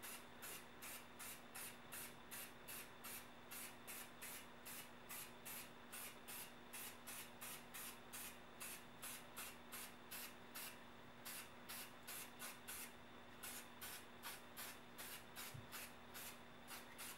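Aerosol spray-paint can sprayed through a vinyl stencil in quick short bursts, about three a second, with a brief pause about three-quarters of the way through. The short light passes keep the coat thin so the paint doesn't run behind the stencil.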